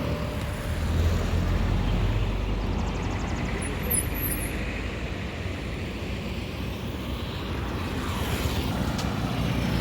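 Street traffic: a motor vehicle passes with a low rumble, loudest in the first few seconds, over a steady background of road noise.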